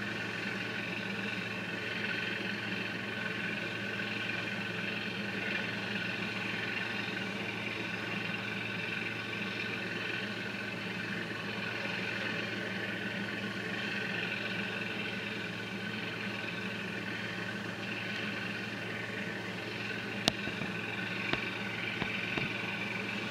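A steady, unchanging engine hum, with a few sharp clicks near the end, the first the loudest.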